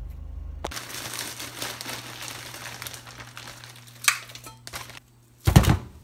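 Plastic bag of frozen vegetables crinkling as it is handled over a steel cooking pot, with a sharp knock about four seconds in and a loud thump near the end.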